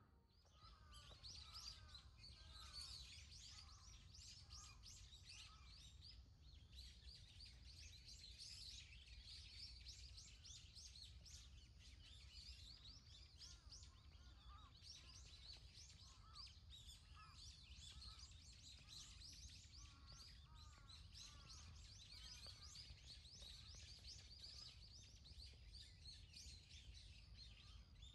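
Many small birds chirping and twittering at once, a dense continuous chorus of quick high notes with some lower whistled calls, over a faint steady low rumble.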